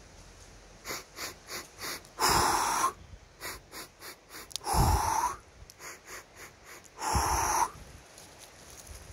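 A man doing xixihu qigong walking breathing: a run of short sniffs in, then a long loud breath out, repeated three times about two and a half seconds apart.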